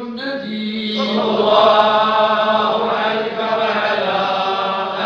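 A group of men chanting a Sufi dhikr together in unison, on long held notes, in the Tijaniya zawiya. The chant swells louder and fuller about a second in.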